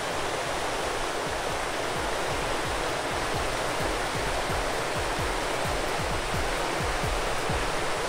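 Clackamas River rapids rushing, a steady roar of white water with no let-up.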